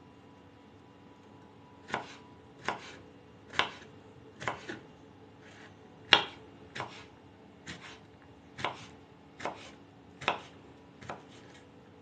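Kitchen knife chopping cucumber on a wooden cutting board: slow, separate knocks about one a second, starting about two seconds in.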